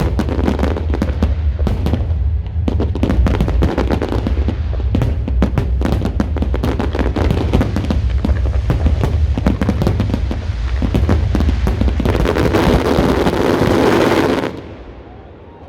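Dense, rapid crackling and banging of fireworks and firecrackers over a steady low rumble. About twelve seconds in, the crackle thickens into a loud continuous sizzle, then cuts off and fades near the end.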